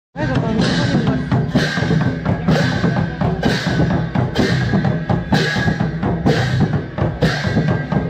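Traditional processional drumming: large double-headed barrel drums played with hand cymbals, the cymbals clashing about twice a second over the drum beat.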